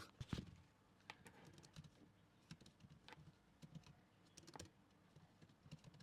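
Faint computer keyboard typing: irregular key clicks as a name is typed into a search box.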